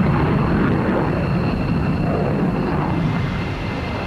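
Jet noise of an F-15 fighter flying with both engines in afterburner: a steady, loud rushing sound that eases slightly toward the end.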